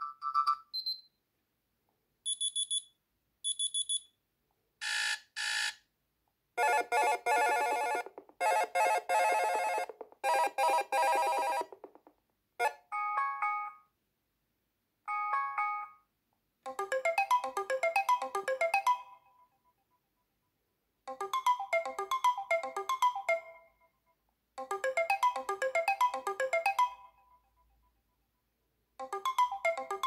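Wileyfox Swift 2 Plus phone speaker previewing its built-in alarm tones one after another, each cut short as the next is chosen: a pair of short high beeps, a harsh buzzer alarm, a couple of brief chimes, then a melodic electronic chime pattern that repeats in bursts.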